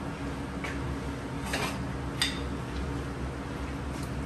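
A few light clinks and knocks of kitchen utensils as a wooden spoon is drawn from a crock of cooking utensils, over a steady low hum.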